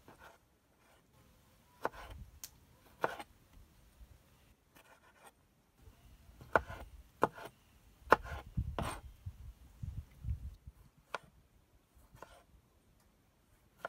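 Chef's knife cutting a tomato on a wooden cutting board: the blade knocks on the board in irregular strokes, busiest in the middle.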